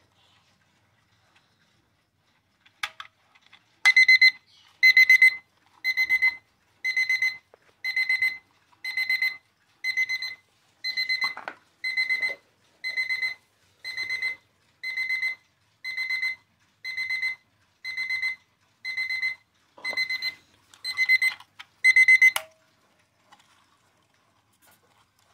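HaUZ Living Basics quartz alarm clock's alarm going off: a high electronic beep in bursts of rapid pulses about once a second, some nineteen bursts, then it stops abruptly. A few faint handling clicks come before it starts.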